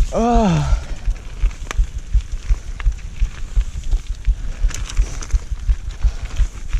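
Mountain bike rolling over a gravel forest track: irregular low rumble of wind buffeting the bike-mounted camera's microphone, with scattered clicks and rattles from tyres and bike. A short shouted call, falling in pitch, right at the start.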